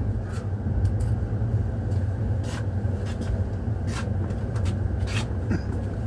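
Passenger train heard from inside the coach as it rolls slowly along a station platform on arrival: a steady low rumble, with scattered sharp clicks now and then.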